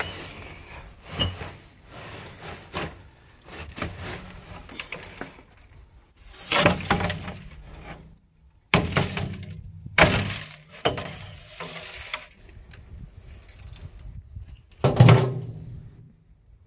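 Pieces of scrap metal being thrown and dropped onto a pile: a run of irregular clanks and clatters, with heavier crashes near the middle and one near the end.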